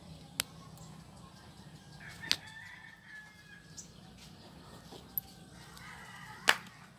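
Chickens clucking and a rooster crowing faintly, with four sharp clicks over the top, the loudest near the end.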